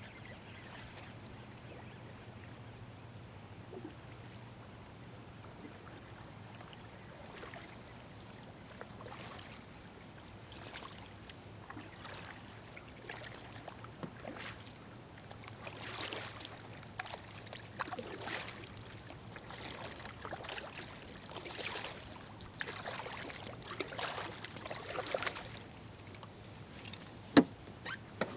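Water sloshing and splashing in irregular strokes that grow louder and more frequent from about ten seconds in, over a steady low hum, with a sharp knock near the end.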